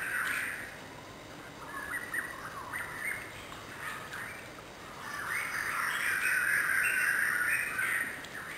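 Birds chirping and calling, the chatter busiest and loudest from about five and a half to eight seconds in.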